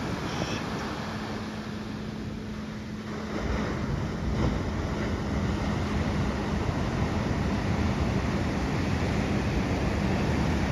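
Ocean surf breaking and washing on a beach, a steady rushing wash that swells about three and a half seconds in, with a faint steady low hum underneath.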